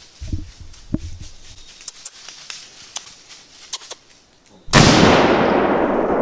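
A single gunshot about three-quarters of the way through, fired at a wild hog: a sudden, very loud report followed by a long, loud rumble that does not die away. Before it, a few faint clicks and rustles.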